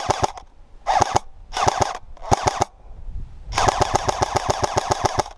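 Airsoft rifle firing on full auto in short rapid bursts, five in all, the last held for almost two seconds.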